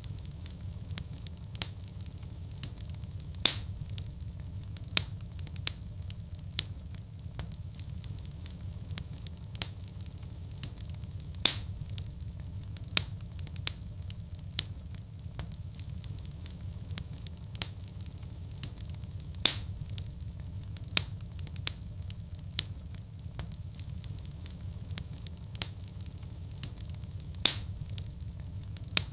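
Fire burning in a fireplace: a steady low rumble with frequent sharp crackles and pops. The loudest pop comes back about every eight seconds.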